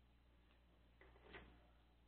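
Near silence with a few faint small clicks about a second in: small plastic toy parts handled as a toy shotgun is pressed into an action figure's hand.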